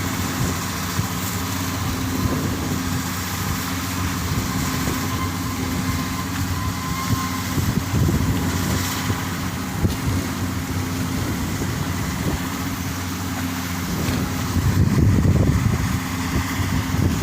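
Ferry engines running with a steady low hum, with gusty low rumble swelling about fifteen seconds in, typical of strong wind on the microphone.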